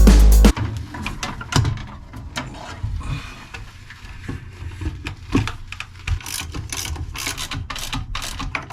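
Irregular clicks, knocks and ratchet-like clicking of hands and tools working on a pool pump's fittings. Loud music cuts off about half a second in.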